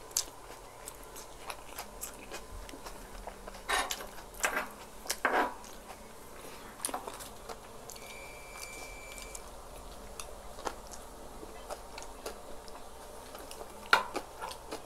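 Two people biting and chewing shawarma pita and siomai, with small clicks and crunches of the food. A few louder bites come about four to five seconds in and again near the end.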